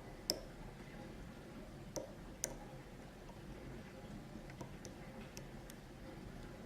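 Faint metallic clicks of a dimple pick working the pins of a six-pin Ezcurra dimple euro cylinder: three sharp clicks in the first two and a half seconds, the first the loudest, then a few lighter ticks later on.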